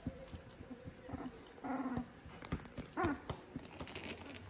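Two-week-old Labrador puppies nursing, giving two short whimpering squeaks, about two seconds in and again about three seconds in, over faint scattered clicks.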